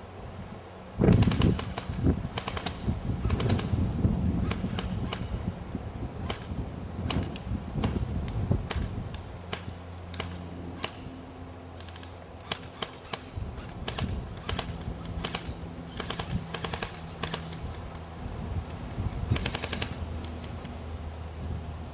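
Airsoft guns firing, in rapid bursts of sharp pops and clicks mixed with single shots, the loudest burst about a second in.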